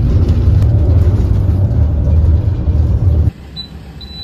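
Steady low rumble of road and engine noise inside a moving van's cabin. About three seconds in it cuts off abruptly to quieter surroundings, where a fuel pump's card-reader keypad gives two short high beeps.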